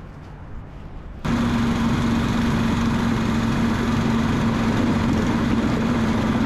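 Snowdog motorized tracked sled running at a steady speed across the ice: a constant engine hum over a broad rushing noise, starting abruptly about a second in.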